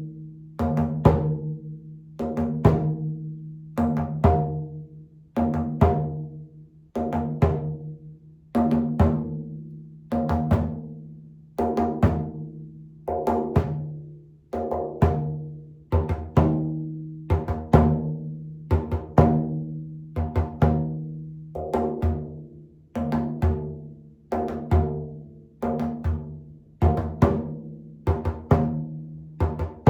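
Frame drum beaten in a steady slow rhythm, about one strong stroke a second with lighter strokes between, its low resonant hum ringing on between the strokes.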